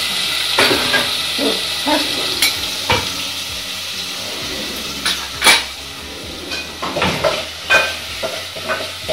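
Chopped onions sizzling in hot oil in a metal pot while a steel ladle stirs them, scraping and knocking against the pot; the hiss of frying is strongest in the first second, and the loudest knock comes about five and a half seconds in.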